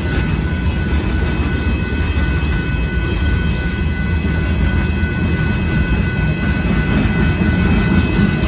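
Union Pacific hopper car train rolling past close by: a steady, loud low rumble with a faint steady high-pitched whine over it.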